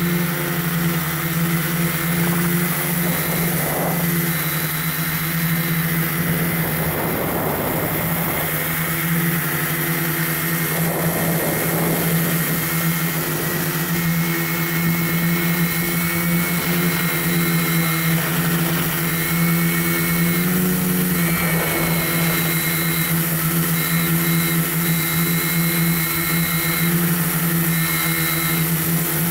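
Camera drone's electric motors and propellers heard from on board: a steady hum with a thin high whine, its pitch stepping slightly about two-thirds of the way through, with a few brief rushes of wind on the microphone.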